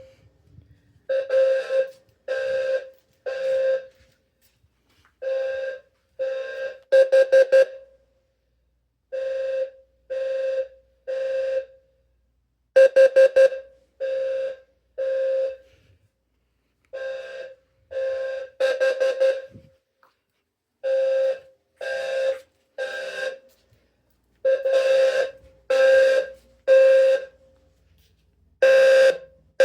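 Two low-frequency fire alarm horns, one a Wheelock low-frequency sounder, sounding a low buzzy tone out of step with each other. One sounds the temporal-3 code of three longer beeps with a pause; the other sounds the temporal-4 code of four short, rapid beeps, repeating every few seconds.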